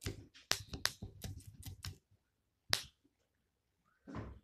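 A quick, uneven run of about nine sharp clicks over two seconds, then a single click, and a softer knock near the end.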